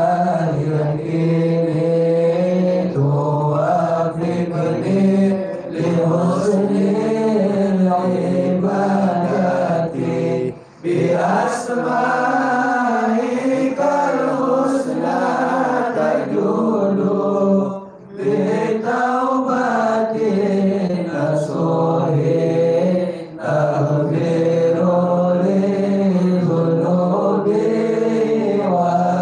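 A man's voice chanting an Islamic devotional recitation in long, melodic held phrases, pausing briefly for breath three times.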